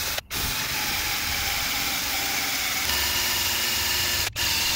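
Cordless drill spinning a 3M rubber adhesive-eraser wheel against old double-sided molding tape on a car door, a steady hissing grind with a thin motor whine. The sound breaks off for an instant twice, once just after the start and once near the end.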